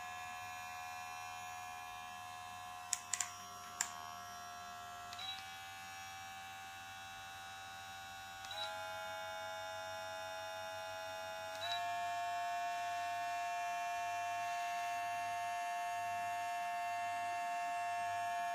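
VGR V682 cordless hair clipper running with a steady motor whine that steps up in pitch and loudness three times as it is switched up through its speed settings, about five, eight and a half and twelve seconds in. A few sharp clicks come around three to four seconds in.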